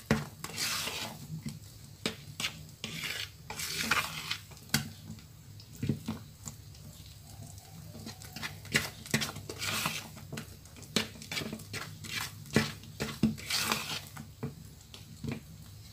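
Spatula stirring and folding thick cake batter in a mixing bowl: irregular wet scraping with soft clicks against the bowl's sides, as melted margarine is worked into the batter.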